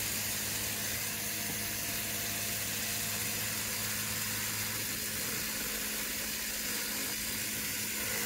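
Pulse motor with a 3D-printed aluminum rotor spinning fast on its bearings, driven by its coils at 7 volts: a steady whir with a steady low hum under it.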